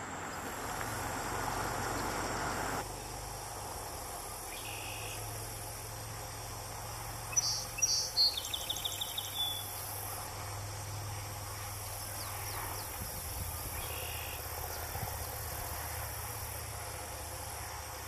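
Steady high chorus of crickets and other insects, with a song sparrow singing once about seven seconds in: a couple of clear, high opening notes followed by a short rapid trill, and a few faint single chip notes elsewhere.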